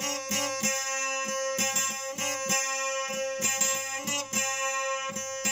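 Instrumental break in a Persian folk-style song: a plucked string instrument plays a quick rhythmic figure over a steady held drone note, with no singing.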